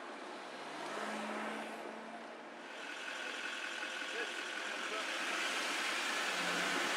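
Road and traffic noise heard from inside a moving car, with a faint low engine hum early on. The noise grows louder about halfway through.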